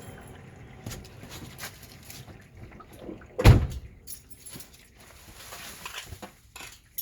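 Handling noises: scattered light clicks and rattles, with one heavy thump about three and a half seconds in.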